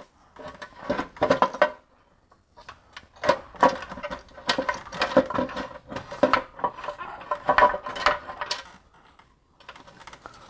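Loosened oil pan of a BMW E46 being worked down past the steering and transmission cooler lines, the metal pan clanking and knocking irregularly against the parts around it, with two short pauses.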